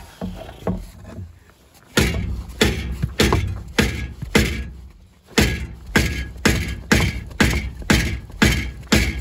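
Rubber mallet striking a Nissan Titan's catalytic converter from underneath, to break up and knock out the catalyst inside. A few light knocks come first, then steady heavy blows about two a second, with a short pause midway.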